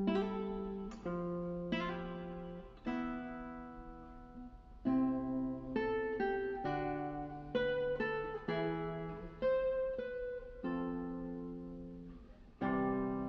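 Acoustic guitar music: plucked notes and chords struck about once a second, each ringing out and fading before the next.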